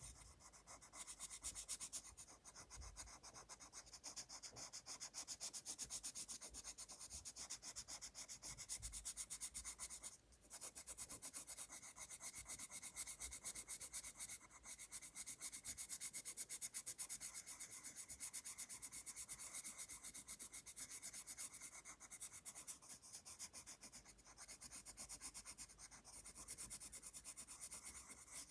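Colored pencil shading on sketchbook paper: quick, even back-and-forth rubbing strokes, with a brief pause about ten seconds in.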